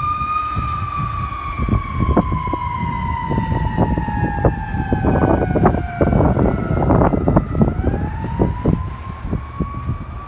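Fire truck siren wailing, sliding slowly down in pitch for several seconds, breaking off, then climbing again near the end. Under it are a low engine rumble and a rapid scatter of sharp clicks and knocks.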